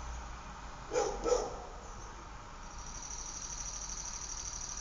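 Outdoor neighbourhood ambience: a dog barks twice about a second in, then a steady, evenly pulsing high-pitched insect trill sets in before halfway.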